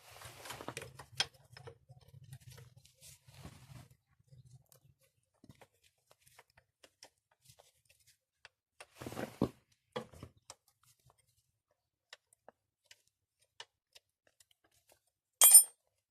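Scattered handling noises of tools and parts: rustling and light knocks, then one short, sharp metallic clink with a brief ring near the end.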